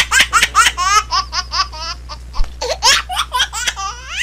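High-pitched laughter in rapid repeated bursts, about five a second at first, then looser and more spread out after about two seconds.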